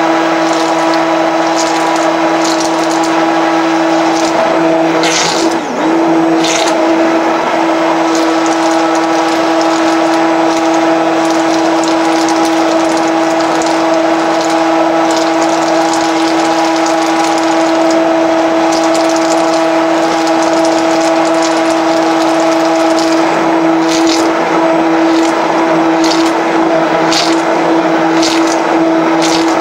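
Electric immersion blender running steadily at a constant high whine, its blade churning thick hot-process soap batter in a plastic bowl. The motor dips briefly about six seconds in, and the blade head scrapes and clicks against the bowl now and then.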